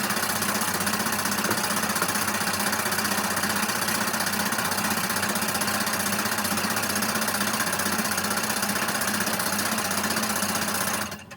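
Workshop machinery running steadily with a constant mechanical hum and noise, cutting off abruptly just before the end.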